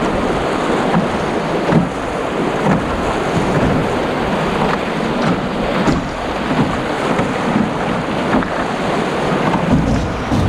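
Rushing whitewater of a shallow, rocky river rapid, loud and steady, with a few faint knocks.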